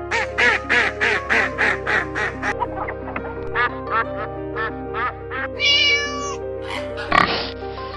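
Duck quacking in a fast run of about three quacks a second, then slower, fainter quacks, with a higher held call and a short harsh burst near the end, over background music.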